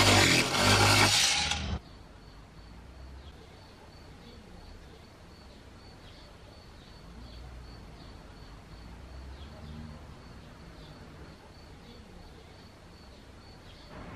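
Angle grinder driving a reciprocating chisel attachment, running loud with a low pulsing hum as the chisel pares shavings from a pine board, cut off abruptly about two seconds in. After that, quiet background with faint, regularly repeating high chirps.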